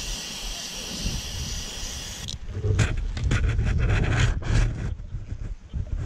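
Aerosol spray hissing steadily, cutting off suddenly about two seconds in. After that come wind buffeting and scraping, rustling sounds close to the microphone as the mesh protective veil shifts.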